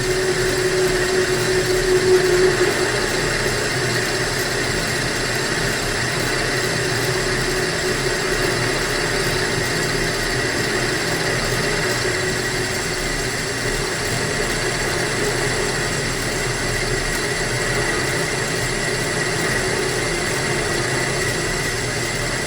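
Homemade lathe running steadily, its motor giving a constant hum with a few steady whining tones, slightly louder about two seconds in.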